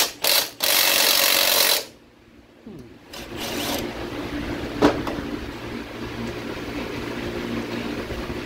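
A small Milwaukee cordless power tool running in bursts as it drives a mounting bolt: two short bursts, then a longer run about a second in, another short burst around three seconds, and a sharp click near five seconds.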